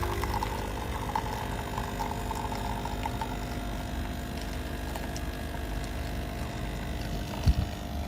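Nespresso Essenza Mini capsule coffee machine brewing, its pump running with a steady hum. A single knock comes near the end.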